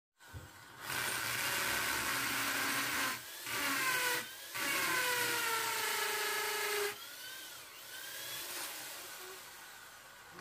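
Hand-held electric drill boring into a wall in three runs, the first and last about two seconds each, the middle one shorter. The motor's pitch sinks through the last run as the bit bites, and after about seven seconds the sound is much quieter.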